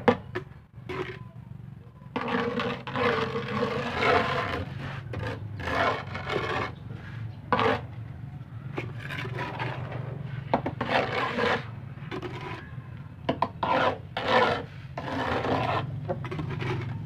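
Metal scraper spreading a thick, gritty mix of tile grout, wood glue and sand across a plywood box top: repeated rasping scrape strokes of uneven length, over a steady low hum.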